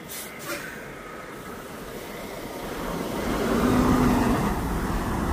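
Volvo semi-truck's diesel engine running, getting louder over a couple of seconds about halfway through, with a steady low drone.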